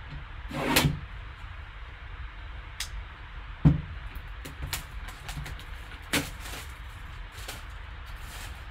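Scattered clicks and knocks of a sealed trading-card box being handled and opened, with a short rustle under a second in and a sharp knock a little later.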